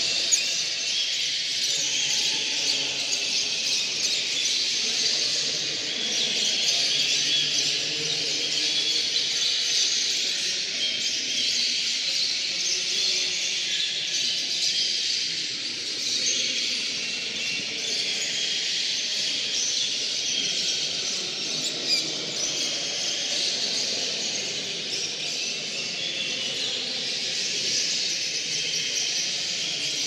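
A hall full of caged canaries and finches singing and chirping all at once: a dense, unbroken chorus of high trills and twitters.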